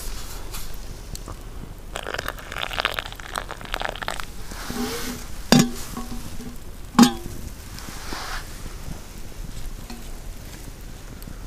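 Campfire crackling and sizzling under a hanging camp kettle, with two sharp knocks about a second and a half apart midway.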